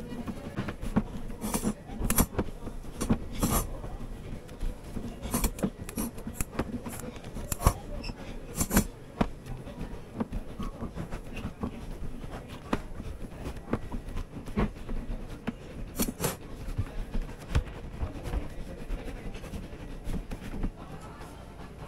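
Gloved hands rolling and handling ropes of warm melon hard candy on a silicone-mat table: steady rubbing, with scattered sharp taps and clicks.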